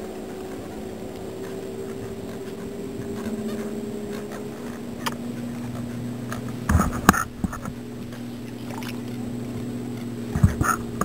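Handling knocks and thumps as a largemouth bass is held and lowered over the side of a kayak, in a cluster about seven seconds in and again near the end, over a steady low hum.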